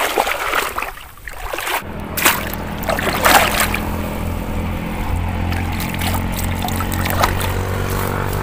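Water splashing and sloshing as a mesh scoop net is worked through shallow muddy pond water, with a few sharper splashes. From about two seconds in, a motor vehicle's engine runs underneath with a steady low hum.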